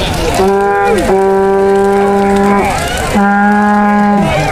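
Two long held notes at one steady pitch, the first about two seconds and the second about one second, with faint crackling from a large bonfire beneath.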